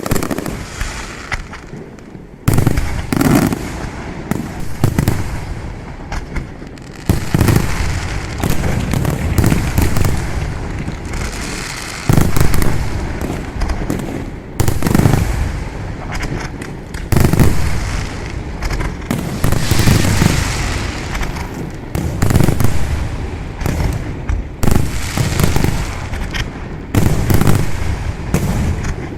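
Fireworks display: a dense, continuous barrage of bangs and crackling, with a fresh volley of loud reports about every two and a half seconds.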